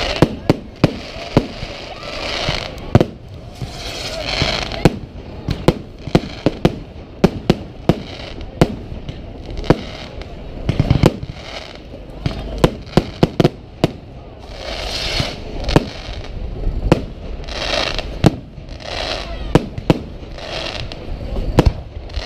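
Firework display: an irregular run of sharp bangs from bursting aerial shells, dozens of them, with brief stretches of hiss in between.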